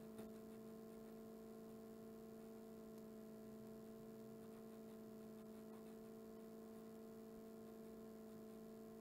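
Near silence: a faint, steady hum of a few unchanging tones over light hiss, with a tiny tick just after the start.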